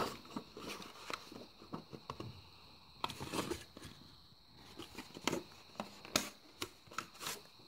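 Handheld plastic craft shape punch being worked with coloured paper: scattered sharp clicks and clacks with paper handling in between, at irregular intervals.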